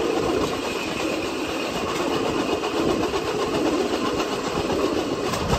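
Vélorail (pedal rail bike) rolling along an old railway track: the steel wheels on the rails make a steady rolling rattle.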